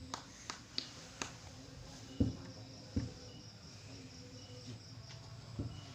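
Insects, likely crickets, chirping steadily in the background, with a few sharp clicks early on and two dull low thumps about two and three seconds in.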